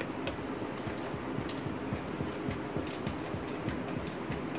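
Stainless-steel rolling pin rolling out paratha dough thin on a round board: a steady low rumble with light, irregular clicks.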